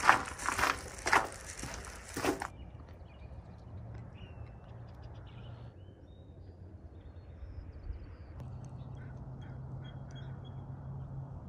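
Footsteps crunching on a sand- and grit-strewn concrete walkway, about two steps a second. About two and a half seconds in they cut off, leaving a quiet outdoor background with a low steady hum and a few faint bird calls.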